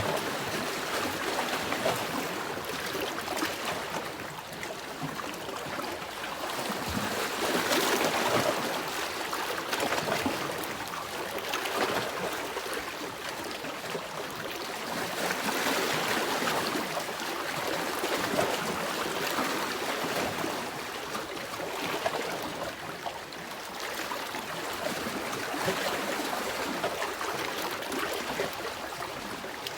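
Sea waves washing in and drawing back, a continuous rushing hiss that swells every few seconds.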